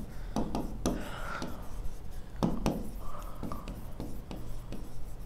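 Pen strokes on a writing board: a run of short scratches and taps as handwritten letters are written.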